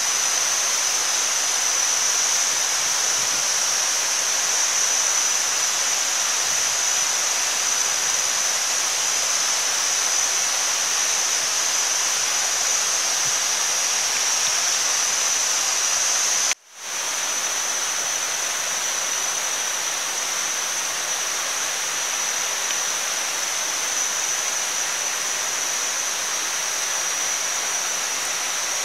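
Meat and an egg sizzling in hot fat on a stone slab heated by a wood fire, a steady dense hiss. A steady high-pitched drone sits over it throughout. The sound drops out for a moment a little over halfway through, then carries on slightly quieter.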